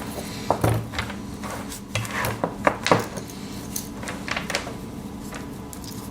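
Light metallic clicks and clinks as a Victorinox Swiss Army knife and a metal zipper puller are handled, scattered and irregular, busiest in the first few seconds.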